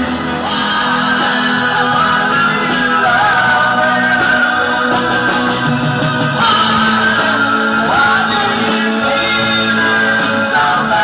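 Live pop band playing a song, with singing over guitar and band backing, loud and continuous.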